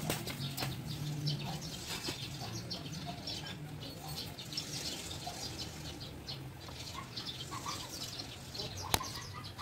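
Cloth rag rubbing over a scooter's plastic and metal body in short, scratchy wiping strokes, with one sharp click near the end.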